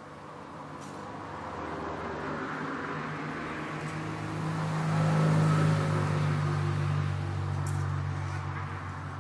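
A car passes on a nearby road: its engine and tyre noise swell, loudest about five and a half seconds in, then fade slowly.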